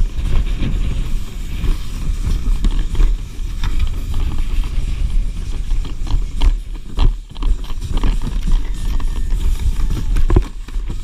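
Plastic whitewater kayak hull sliding down a snow slope: a loud low rumbling scrape under the boat, broken by irregular knocks and crunches as the boat and paddle hit the snow.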